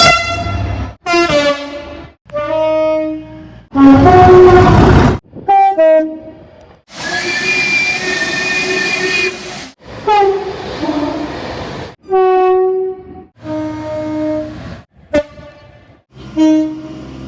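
British train horns sounding in a rapid string of short clips, each cut off abruptly before the next begins. The blasts differ in pitch from one train to the next, and some step between two notes.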